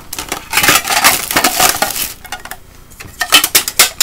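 Small unboxed items being handled: a stretch of rustling and scraping, then several sharp clinks near the end, as coasters and a metal tin are moved about and set down.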